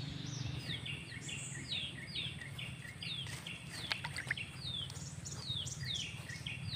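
A bird calling over and over in a quick series of short, high notes that slide downward, about two a second, over a steady low hum. A few light clicks come about three to four seconds in.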